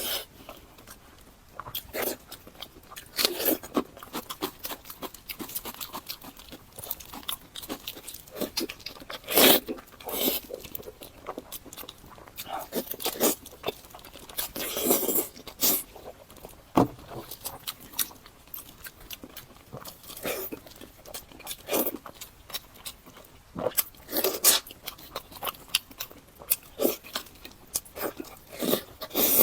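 Close-miked eating sounds: crunchy bites and chewing, coming in irregular clusters of short crackling strokes.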